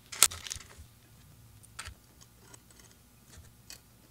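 A few sharp little clicks and taps from hands handling the gimbal's small parts, the loudest about a quarter of a second in and fainter ones scattered after it.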